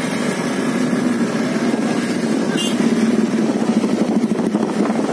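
Small motorcycle engine running steadily with a fast pulsing note, amid busy street traffic.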